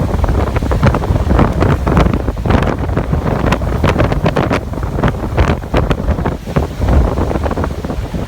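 Wind buffeting the microphone in irregular gusts, with ocean surf washing on the beach underneath.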